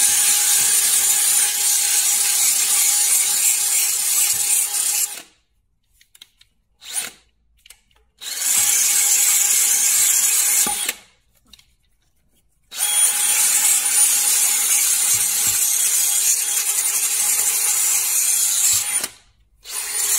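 Cordless drill/driver spinning a homemade cleaning attachment against a car's wheel hub, scouring off dirt and corrosion. It runs in three spells, each a steady motor whine with a scratchy hiss: about five seconds, a short spell about eight seconds in, and about six seconds from thirteen seconds in. There is a brief blip around seven seconds.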